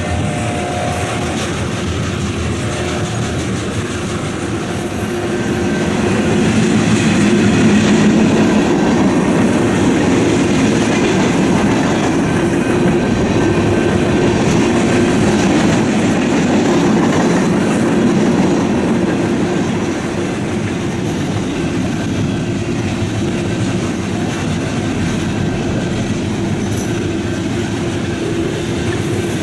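Freight train cars rolling past on the rails: a steady rumble with the clickety-clack of wheels over rail joints, louder for a stretch in the middle. A horn note trails off in the first second or so.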